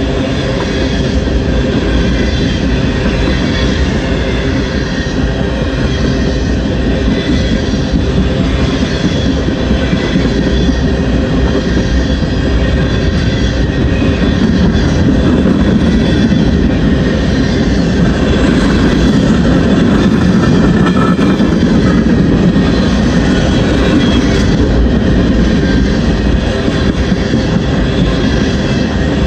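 Covered hopper cars of a freight train rolling past close by: a steady rumble and clatter of steel wheels on the rails, a little louder in the middle.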